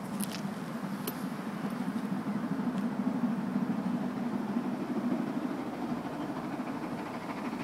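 Approaching train, still out of sight: a steady low rumble, with a few faint high clicks in the first three seconds.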